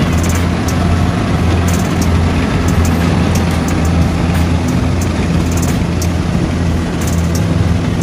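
Kubota crawler combine harvester's diesel engine running steadily under load, with its cutting and threshing machinery working as it harvests rice.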